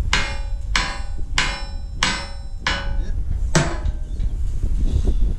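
Hammer blows on a steel plate: six sharp, ringing metallic strikes about two-thirds of a second apart, the last coming a little later.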